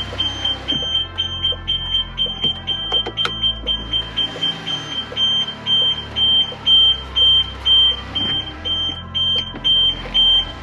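Car interior warning chime beeping steadily, a single high tone repeating about two to three times a second, with a low steady hum beneath and a few clicks in the first half.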